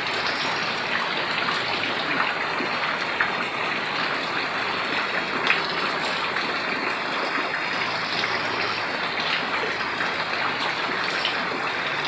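Heavy rain falling, with rainwater running fast along a concrete drain channel: a steady rushing hiss, with a few short sharp taps from drops.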